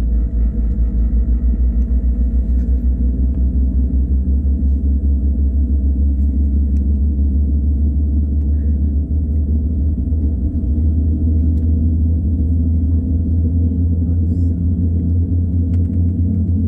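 Steady low rumbling drone inside the cabin of a Boeing 787-9 rolling slowly on the ground, its Rolls-Royce Trent 1000 engines at idle, with a faint steady hum above it.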